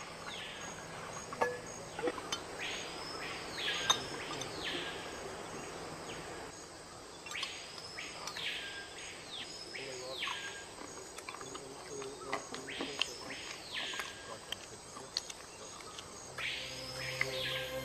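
Tropical forest ambience: a bird calls again and again with slurred whistles that rise and fall, mostly in pairs, each a little under a second. A faint high insect trill runs underneath, with scattered light clicks.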